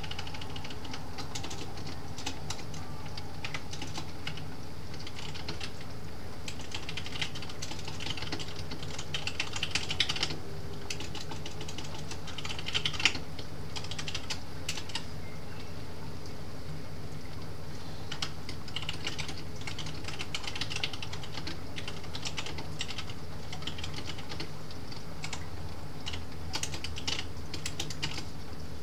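Typing on a computer keyboard in irregular bursts of key clicks, loudest about ten and thirteen seconds in, over a steady low background hum.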